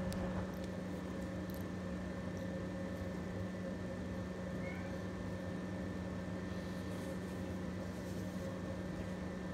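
Steady mechanical hum of room noise, a low drone with a few faint steady tones, unchanging throughout.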